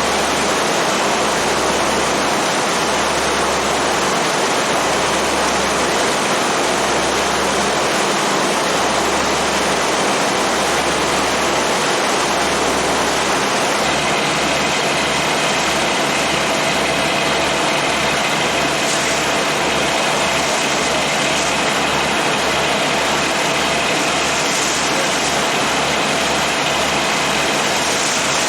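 A passenger boat's engine running under a steady rush of wind and water. A low throb pulses about once a second, then quickens from about halfway through.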